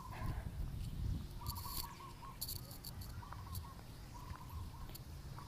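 Short trilled chirping calls repeating about once a second, over a steady low rumble of wind and handling on the phone's microphone.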